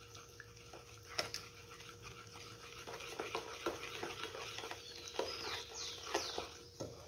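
Wooden spoon stirring wet cake batter in a stainless steel bowl: a steady run of scraping and sharp knocks of the spoon against the metal. A few high, falling squeaky calls come just past the middle.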